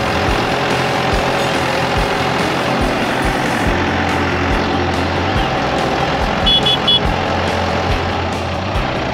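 Compact tractor engine running steadily as the tractor drives along. Three short high beeps come about six and a half seconds in.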